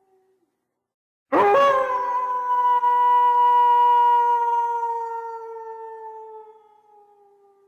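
A single long wolf howl. It starts sharply about a second in, rises quickly in pitch, then holds one clear note that slowly sinks and fades over about five seconds. A faint howl tails off at the very start.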